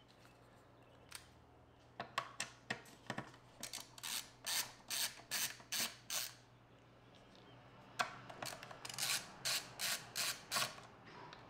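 Screwdriver backing out the small screws of a NAS enclosure's bottom panel: two runs of short sharp clicks, about three a second, with a short pause between them.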